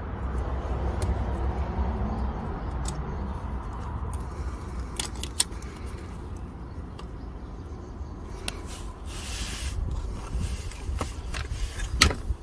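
Scattered sharp metallic clicks and a scrape over a steady low rumble, with a short hiss about two-thirds of the way in and the loudest click near the end.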